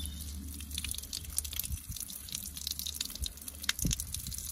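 Water showering from a watering can's rose head onto rose leaves and petals, a steady hiss of spray with a dense spatter of droplets hitting leaves and dripping down.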